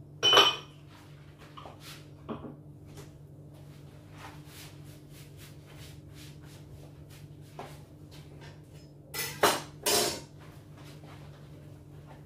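Kitchen utensils and dishes being handled: a sharp clink just after the start, a few light knocks, then two short, louder clattering noises about nine and ten seconds in.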